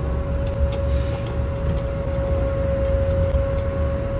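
Steady low vehicle rumble with a constant mid-pitched hum over it, heard inside a car, with a few faint chewing clicks.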